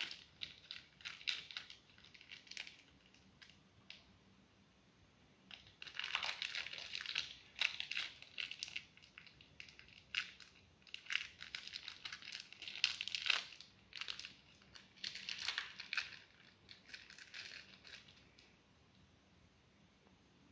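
Plastic wrapping of cheese slices crinkling and crackling in irregular bursts as the cheese is unwrapped and torn into strips. There is a lull of a few seconds about three seconds in, and the crackling stops about two seconds before the end.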